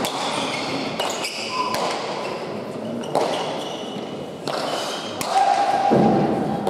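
Hard pelota ball struck bare-handed and slamming off the front wall of an indoor court: sharp echoing smacks every second or two, mixed with shoe squeaks on the court floor.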